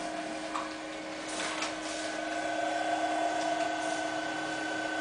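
Wrapping motor of an ST-10 button wrapping and knotting machine running in its motor test mode: a steady mechanical hum with a few steady tones, getting a little louder about two seconds in.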